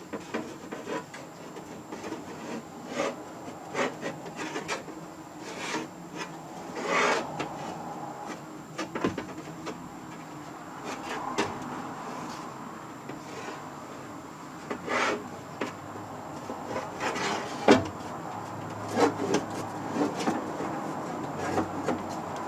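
2013 Ford Escape front door window glass being worked into the door and its rails, rubbing and scraping against the door, with scattered knocks and clicks.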